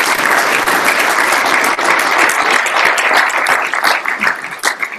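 Audience applauding, a dense clapping of many hands that thins out into scattered claps near the end.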